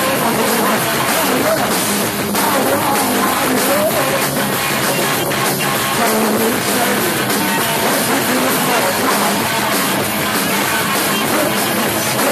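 Punk rock band playing loud and live: electric guitars and a drum kit, with a man singing into a microphone.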